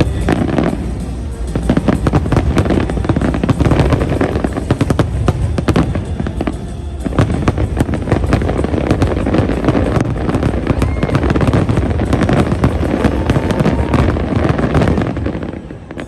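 Fireworks display: a dense run of rapid bangs and crackles that thins out and fades near the end, with music playing alongside.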